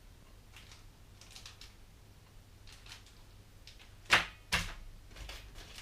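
Bagged parts of an RC airplane kit being handled: faint rustling and small clicks, then two loud sharp clacks about half a second apart, about four seconds in.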